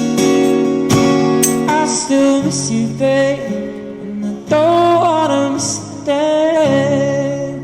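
Acoustic guitar with two strummed chords, then slower held chords with a wordless voice wavering over them, fading down near the end as the song closes.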